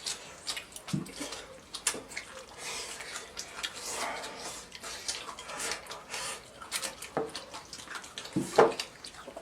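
People eating soft braised eggplant with rice: wet chewing and lip smacking, with small irregular clicks of tableware.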